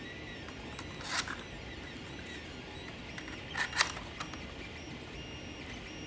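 Creality Ender 3 3D printer's stepper motors running under the other sounds, a faint whine of thin tones that shift pitch in steps as the print head moves. Two short clicky rattles stand out, one about a second in and a double one about three and a half seconds in.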